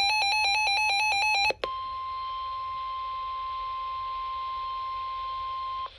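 Emergency Alert System data burst, a rapid warble of alternating digital tones, cuts off about a second and a half in; after a click, the steady single-pitch weather-radio alert tone near 1 kHz sounds for about four seconds, the attention signal that comes before a National Weather Service warning message.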